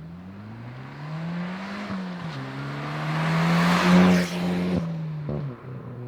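Hyundai i20N's turbocharged 1.6-litre four-cylinder engine accelerating hard, with a gear change about two seconds in. The sound grows loudest, with a rush of noise, about four seconds in, then the revs drop off near the end.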